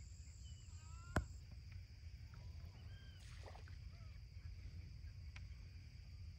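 Faint marsh ambience: a low steady rumble of wind or handling noise under a thin steady high whine, with a few short faint bird calls. One sharp click about a second in is the loudest sound.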